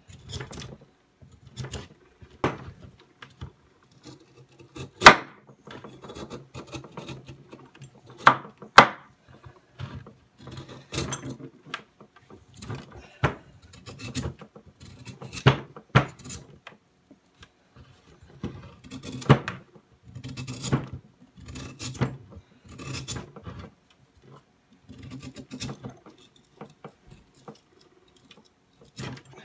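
Knife carving a hardwood blank, shaving off curls and chips in irregular cutting and scraping strokes, with a few sharp clicks louder than the rest.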